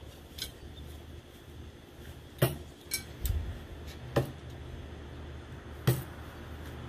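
Three throwing knives striking and sticking into a wooden board, one after another about every second and three-quarters. Each hit is a single sharp knock with a metallic edge.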